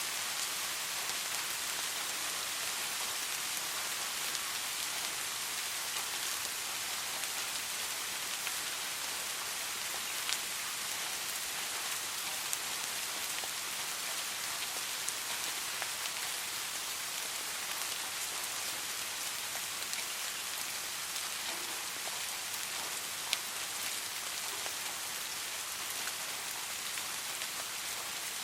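Steady soft rain falling, an even hiss with scattered individual drops ticking on a surface.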